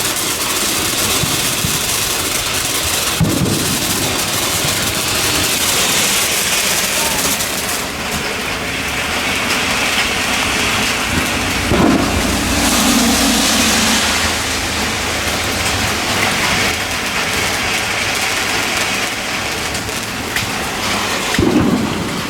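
Rain falling steadily, a hiss that swells and fades, with backyard fireworks going off: three dull booms, one about three seconds in, one near the middle and one near the end.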